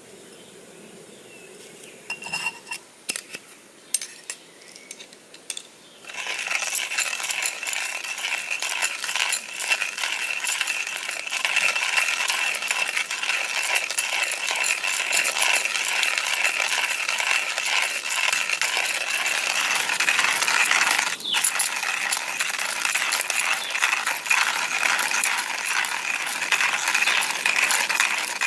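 Stainless steel hand-crank coffee grinder: a few light metal clicks, then from about six seconds in a steady crunching rattle as the burrs grind coffee beans while the crank is turned.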